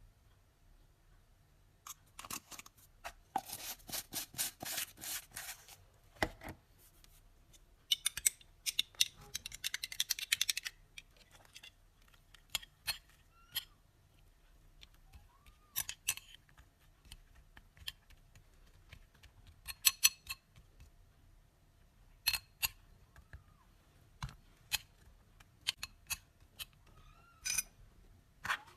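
Cat-food preparation handling sounds: two dense runs of rapid snipping and crackling, then scattered sharp clicks and taps of utensils and containers.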